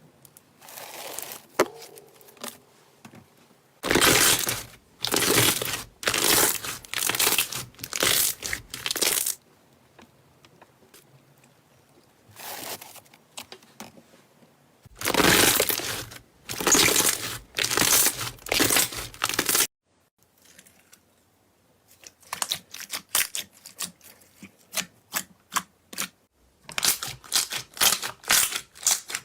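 Slime being squeezed and stretched by hand, giving a run of loud crackling, tearing squelches in groups of several, then many quick short crackles and pops in the last seven seconds or so.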